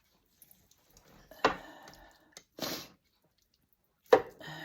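Short wet squishes and knocks, three in all, as a chicken carcass is cut around the vent and handled during gutting.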